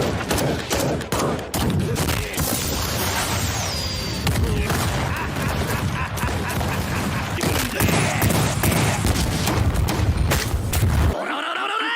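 Anime fight sound effects: a dense, rapid barrage of hits and blasts over a heavy low rumble, like sustained gunfire. The rumble cuts off suddenly about eleven seconds in.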